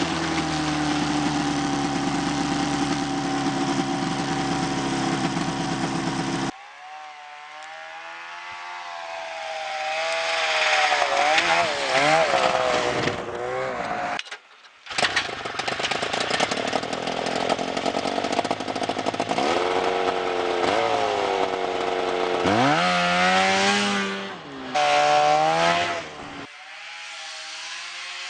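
Vintage snowmobile engines running and revving, the pitch rising and falling with the throttle. The sound comes in several short clips with abrupt cuts between them.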